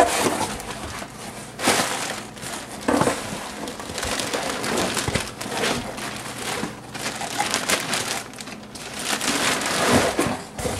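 Plastic air-cushion packing and cardboard rustling and crinkling as hands dig a boxed item out of a shipping carton, in irregular bursts.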